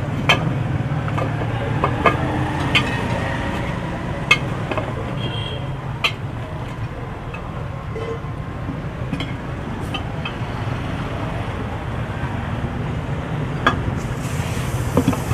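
Steady rumble of road traffic, with scattered sharp clicks and knocks every second or few seconds from tyre-changing work.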